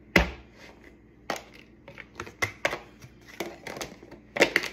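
Lunch containers and packaging being handled: irregular light clicks and knocks, with a quick cluster of them near the end.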